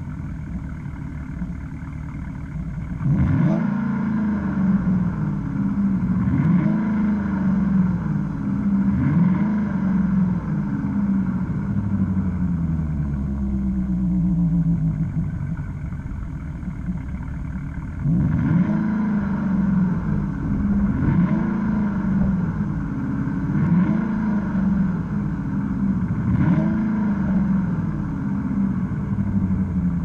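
2015 Chevrolet Camaro RS engine and exhaust, heard from behind the tailpipes: it idles, is revved about three times a few seconds in, settles back to idle, then is revved about four more times in the second half.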